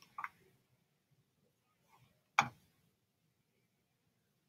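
Near silence broken by one short, sharp computer mouse click about two and a half seconds in, with a fainter tick just after the start.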